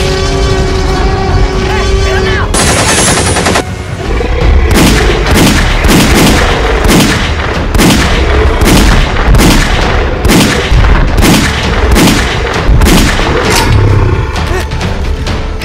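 Rifle gunfire: a steady run of single shots, about one and a half a second, starting about four and a half seconds in and stopping near the end.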